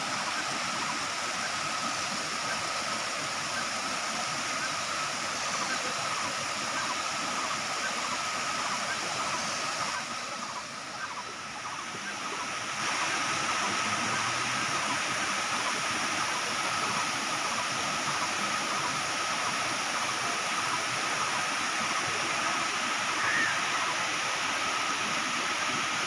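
Water pouring over tiered travertine cascades into pools: a steady rush of falling water, with a thin steady high tone above it. The rush dips briefly about ten seconds in, then comes back a little louder.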